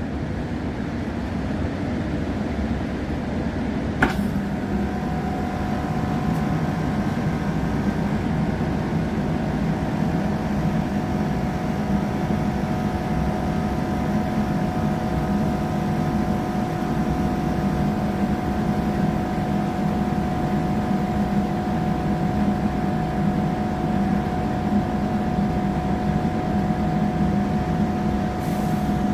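Inside a diesel passenger train: a steady rumble of running gear and engine. A single sharp click comes about four seconds in, and just after it a steady engine hum and a high whine come in and hold.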